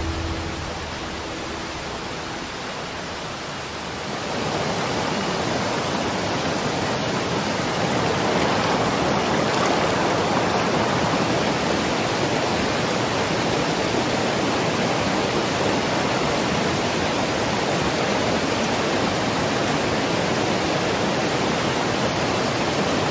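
Steady rush of flowing water from a forest stream, growing louder about four seconds in and then holding even.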